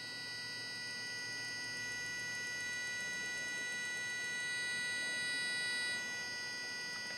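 Home-built IGBT boost converter running under load, giving off a steady high-pitched electrical whine made of several fixed tones. It is boosting a roughly 20 V battery to about 100 V. The whine grows a little louder, then eases off about six seconds in.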